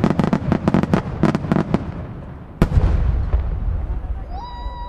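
Aerial firework shells bursting: a rapid run of crackling pops, then about halfway through one heavy boom with a low rumbling echo after it. Near the end comes a short whistle that rises and then holds its pitch.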